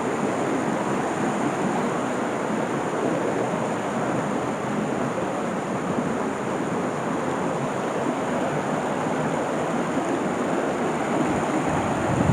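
Steady rushing of a small woodland stream and waterfall, an even wash of water noise that holds at one level throughout.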